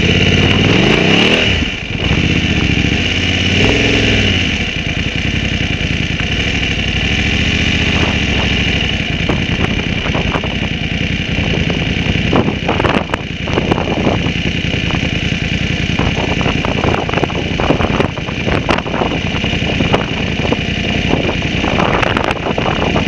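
BMW GS motorcycle engine revving up and down for the first few seconds, then running steadily with a rough, crackly noise over it.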